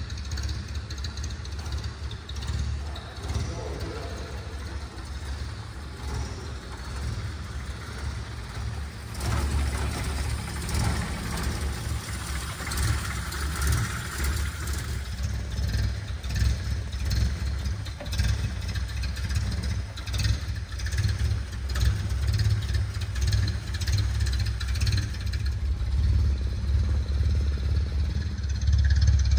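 1949 Ford Anglia E494A's side-valve four-cylinder engine idling steadily with a low drone.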